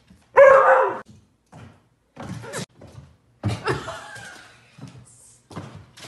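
A dog barks twice, loudly about half a second in and again around three and a half seconds, with short knocks and thumps in between.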